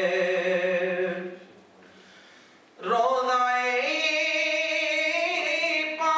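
A man singing unaccompanied into a microphone with long, held notes. He breaks off for about a second and a half near the middle, then comes back in on a new note.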